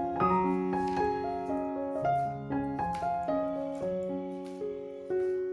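Background piano music, with held notes that change about twice a second.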